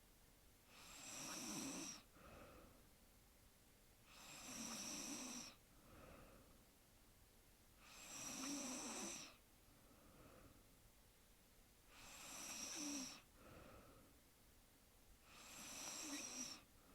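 A woman snoring faintly in her sleep. There are five slow, regular snores, about one every three and a half to four seconds, and each is followed by a fainter, shorter breath.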